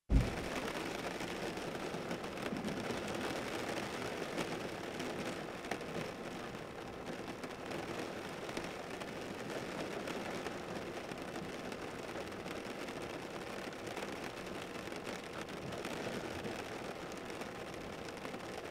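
A steady rushing noise with scattered faint crackles, starting abruptly after silence with a short low thump.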